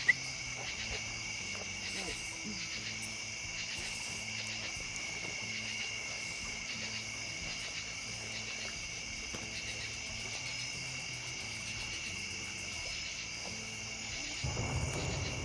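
Steady, unbroken chorus of insects trilling at two high pitches. Near the end a low rumble builds as a car approaches over the bridge.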